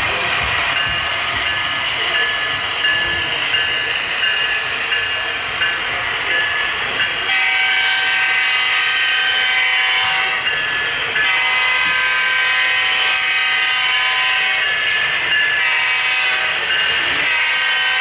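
Model diesel locomotive sound decoder, played through the locomotive's small speaker. A bell rings in a steady repeating ding for the first several seconds, then a multi-chime air horn sounds long blasts from about seven seconds in, breaking off briefly twice.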